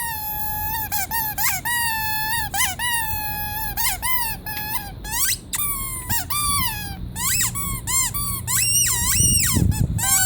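Squeaky rubber toy squeezed over and over. The first squeaks are long and held, about a second each. From about halfway through they come as quicker, shorter squeaks that bend up and down in pitch.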